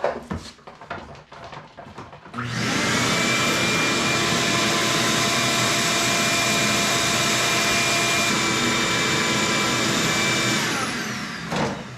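Shop vac switched on about two and a half seconds in, running steadily while it sucks dirt and seal debris out of an engine, then shut off and winding down near the end. Small knocks and handling sounds come before it starts.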